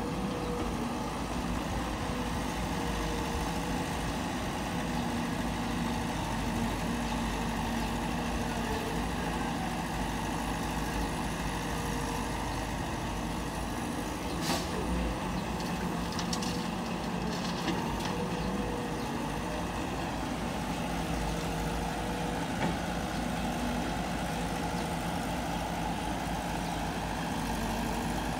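A Caterpillar 312 hydraulic excavator's diesel engine runs steadily as the machine digs and loads soil into a small dump truck. A few brief knocks are heard in the middle of the stretch.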